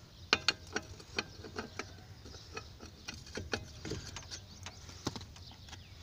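Metal clicking and clinking of an L-shaped wheel brace turning on a car's lug nuts as they are tightened onto a steel wheel: a run of sharp, irregular clicks, the loudest about half a second in.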